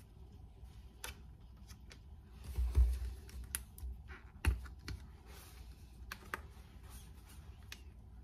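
Scattered light clicks and taps of hands handling a plastic mustard squeeze bottle and its flip-top cap over a bun on a plate, with a couple of dull knocks, the sharpest about four and a half seconds in.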